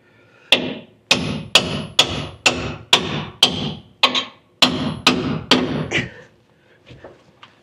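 Hammer blows on steel: about a dozen sharp, ringing strikes at roughly two a second, then a few faint taps near the end.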